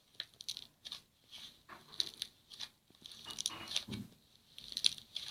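Slime being squished and pressed, giving faint, irregular crackles and clicks.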